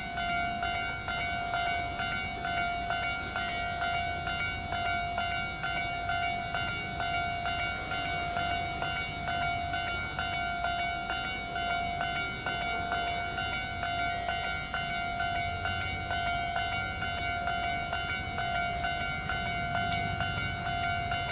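Japanese level-crossing warning alarm on the Hanshin Railway ringing with a steady, rapidly repeated clang, over a low rumble that grows louder near the end.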